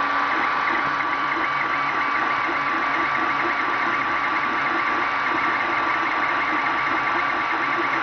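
Creality Ender 3 3D printer printing: stepper motors buzzing in rapidly changing pitches as the print head moves, over the steady whir of its cooling fans.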